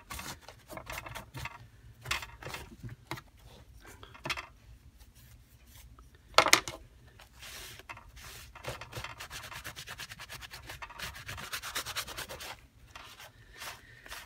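A crumpled wipe scrubbing back and forth over a wet, paint-covered book page, wiping back craft paint so the purple layer underneath shows through. The strokes come in quick runs, densest in the second half, with one louder knock about six and a half seconds in.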